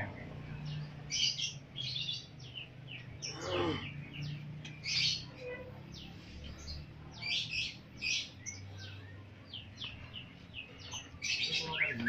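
Many caged lovebirds chirping, short high calls overlapping in an irregular chatter.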